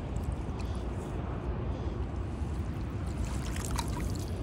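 Water sloshing and trickling as koi fry are let out of a bag into shallow lake water, over a steady low rumble, with a few small splashes about three to four seconds in.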